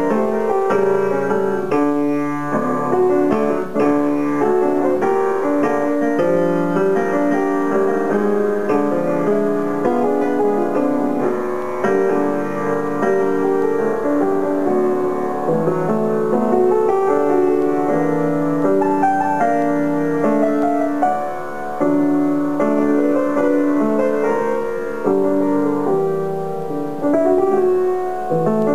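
Grand piano playing a continuous piece of melody over held chords.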